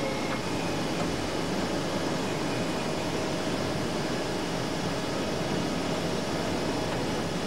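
Hydraulic sawing machine running: a steady mechanical noise with a faint held tone through most of it.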